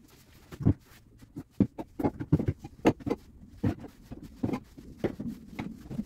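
Irregular knocks and light clatter of someone moving about a hard-floored room: footsteps, and items being picked up and set down on a counter and shelves.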